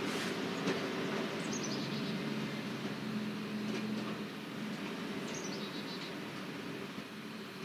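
Pickup truck engine running low and steady as it tows a tractor on a chain, slowly fading. A bird twice gives a short, quick series of notes falling in pitch.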